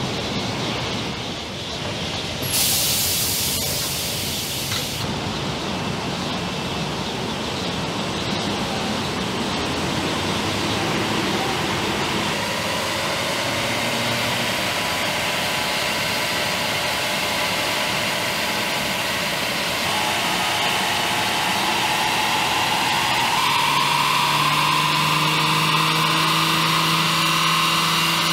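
BMW 4 Series running on a roller dynamometer test stand: a steady whirring of engine and rollers, with a short hiss about three seconds in and a whine that climbs slowly and then holds steady.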